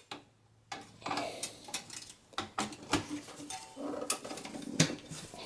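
Video card being fitted into a desktop computer case's PCI Express slot: scattered light clicks, knocks and scrapes of the card's metal bracket and plastic against the chassis, with one sharper click near the end.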